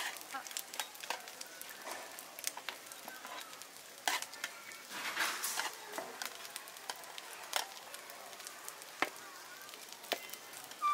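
Glutinous rice cakes sizzling on a flat iron griddle, with scattered clicks and scrapes from a metal spatula turning them.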